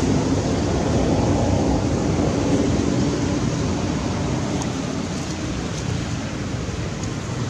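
Steady rushing noise with no distinct events, like wind on the microphone.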